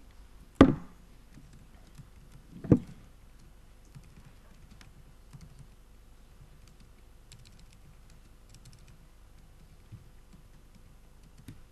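Typing on a laptop keyboard, faint scattered key clicks, with two louder sharp knocks about half a second and nearly three seconds in.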